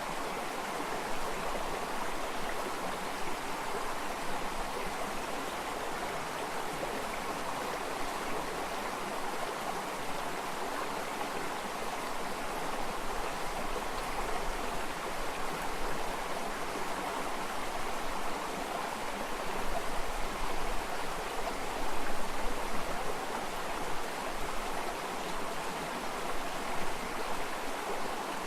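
Running water, like a stream, flowing with a steady rush, a little louder about twenty seconds in.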